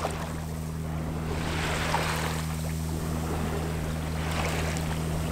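Sailboat under way: water rushing past the hull and wind on the microphone, over a steady low hum. The rush of water swells about two seconds in.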